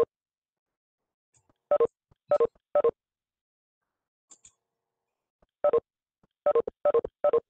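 Video-call app's short two-note chimes, the notification that plays as participants leave the meeting: one right at the start, three quick ones about two to three seconds in, and four more near the end.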